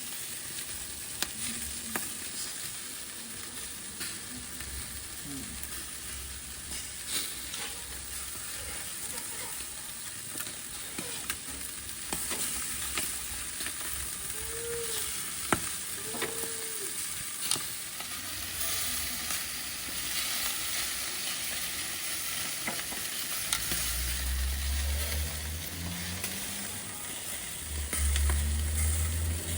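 Meat sizzling over a charcoal grill: a steady hiss broken by scattered sharp clicks and pops. A low rumble comes in near the end.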